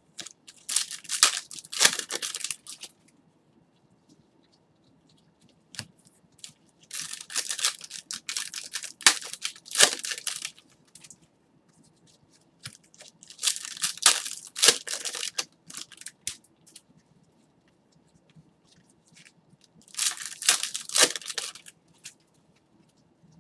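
Foil trading-card pack wrappers being torn open and crinkled by hand, in four separate bursts of crackling tearing with quiet gaps between.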